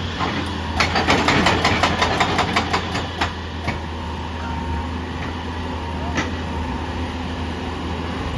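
Heavy machine's diesel engine running steadily, with a rapid run of sharp clattering knocks, about six a second, starting about a second in and lasting roughly two and a half seconds, then two single knocks.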